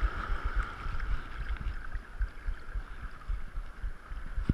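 Wind buffeting a head-mounted camera's microphone in irregular low thuds, over the steady hiss of waves washing across a shallow reef.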